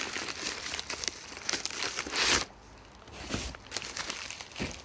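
Package wrapping being torn open and crinkled by hand, with the longest, loudest tear about two seconds in and a few shorter crackles after it.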